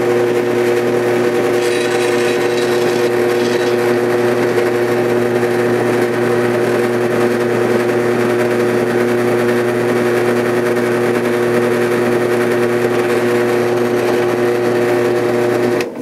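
Drill press running steadily, spinning a four-pin shotshell roll crimper down into the mouth of a 12-gauge plastic slug hull, forming a tight, no-rattle roll crimp. The motor's hum stops abruptly near the end.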